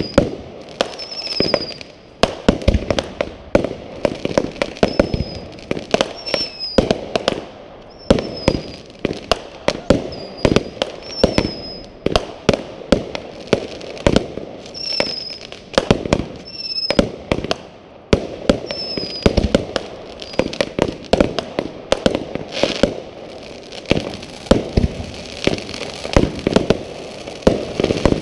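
Aerial fireworks going off in a rapid, continuous run of sharp bangs. Short high whistles that dip slightly in pitch come about once a second through most of it.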